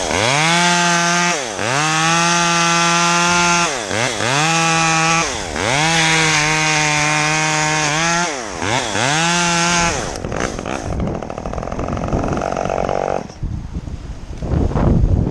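Two-stroke chainsaw revved to full throttle in five bursts of one to two and a half seconds, the engine note dropping back between each. After about ten seconds it falls to a lower, rougher running, and near the end there is a stretch of rustling noise.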